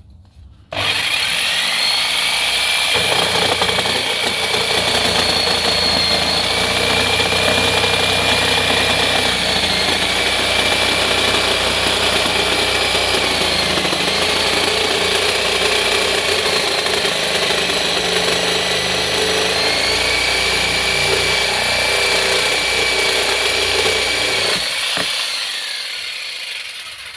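Older corded DeWalt DW341 jigsaw, rated 550 watts, running at its highest speed through a cut. Its motor whine dips several times under load, and the saw seems to have a lot less power than the cordless model. It starts about a second in and winds down near the end.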